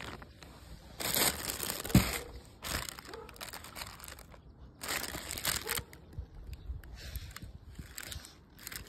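Plastic packaging bags crinkling and rustling in several short bursts as they are handled and opened, with a single thump about two seconds in.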